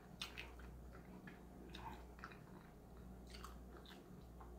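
Faint close-up chewing: a person chewing food with the mouth closed, with small wet mouth clicks scattered irregularly throughout.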